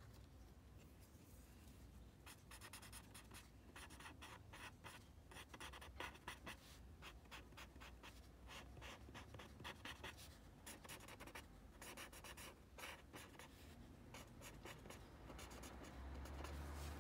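Paper tortillon (blending stump) rubbing pencil graphite into shading on a paper drawing tile, in many quick, short strokes. It is faint and starts about two seconds in.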